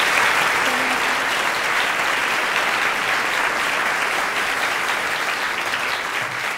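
A large seated audience applauding, dense steady clapping that slowly eases off toward the end.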